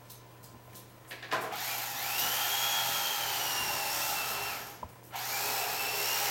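Electric carving knife running in two bursts as it slices a roast turkey: a run of about three seconds, a short stop, then a second run. Its whine climbs at each start and then drops slowly while it cuts.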